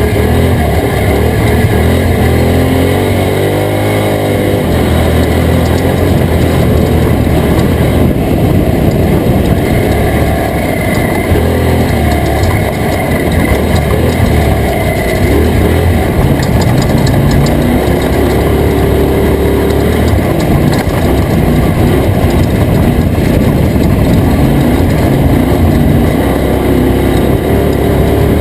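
Toyota Tacoma off-road race truck's engine running hard at speed, its pitch rising and falling with throttle and gear changes, over a steady rush of road and wind noise.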